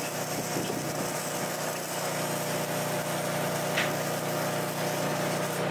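Flux-core wire arc welding: a steady sizzling hiss from the arc, over the even hum of a Miller Trailblazer engine-driven welder running.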